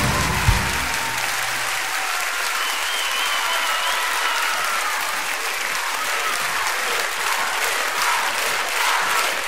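A live band's closing chord ends on a final hit about half a second in, and a concert audience applauds steadily through the rest.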